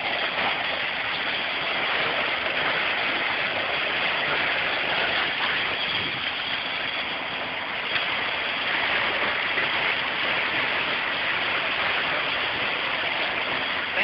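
Concrete pump at a foundation pour running steadily: an engine drone with a rushing noise over it.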